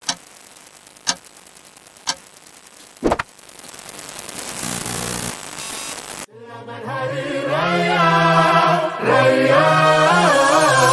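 Intro sound effects: a faint crackle and hiss with four sharp clicks about a second apart, then a rising swell of noise that cuts off suddenly a little past halfway. Music follows: a wavering melody over a low held note.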